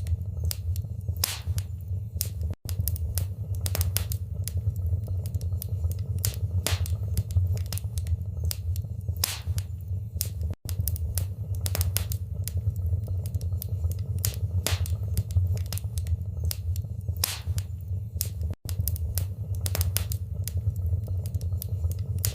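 Wood fire burning in a fireplace: a steady low rumble of flames with frequent, irregular sharp crackles and pops. The sound cuts out for an instant three times, about eight seconds apart.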